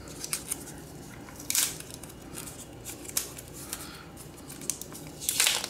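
Small plastic camera accessories and packaging being handled on a stone counter: scattered light clicks, with two short, louder rasps of plastic, about a second and a half in and again near the end.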